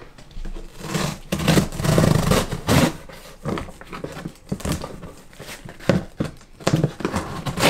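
A cardboard shipping box being cut and ripped open: irregular scraping and tearing strokes along the packing tape, cardboard rustling, and a few sharp clicks near the end.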